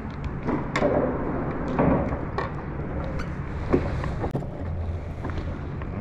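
Scattered clicks and knocks of a bass being landed and handled on a kayak, over a steady low rumble.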